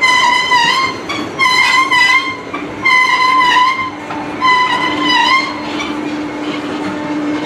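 Slow-moving freight cars rolling past with repeated high, wavering wheel squeals. Each squeal lasts under a second and comes back about every second and a half; the squeals give way to a lower steady ringing tone over the rolling noise near the end.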